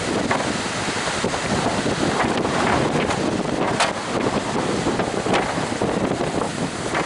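Strong wind buffeting the microphone over the steady rush of high surf.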